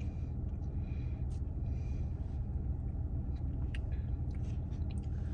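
Steady low rumble of an idling car heard inside the cabin, with a few faint clicks.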